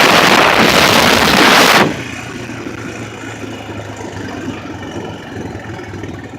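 Loud rushing noise, wind on the microphone while riding, cuts off suddenly about two seconds in. After that an ATV engine idles steadily.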